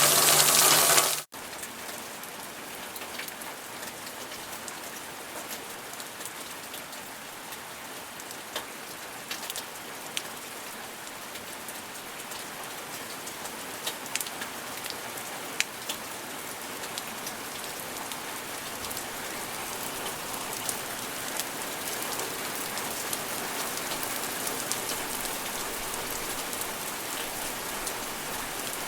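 A loud rush of water cuts off abruptly about a second in, giving way to steady gentle rain with scattered sharper drops ticking on a surface. The rain grows slowly louder toward the end.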